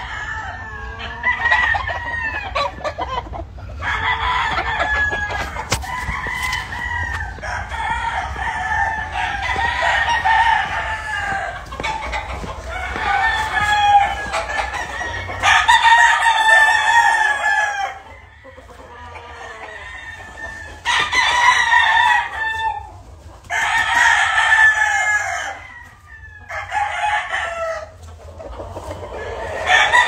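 Several gamefowl roosters crowing one after another, each crow lasting a second or two. They overlap almost without a break for the first half, then come with short pauses between them.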